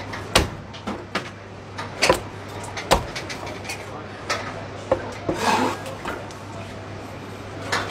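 Chinese cleaver chopping through a roast duck onto a thick wooden chopping block: about five sharp chops at uneven gaps of one to two seconds.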